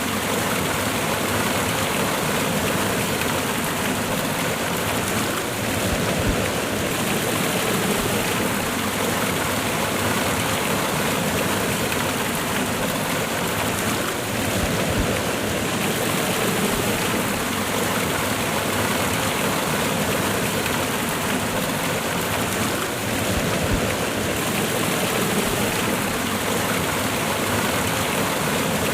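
Water of a waterfall cascade pouring and splashing in a steady, unbroken rush.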